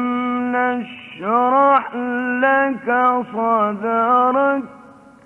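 Male Quran reciter chanting in the melodic mujawwad style. He holds a long, steady note until about a second in, then sings a run of shorter, ornamented phrases that rise and fall in pitch, and stops about four and a half seconds in.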